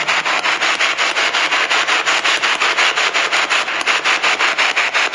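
Spirit box sweeping the radio band: a steady hiss of static chopped about eight times a second, with no voice coming through.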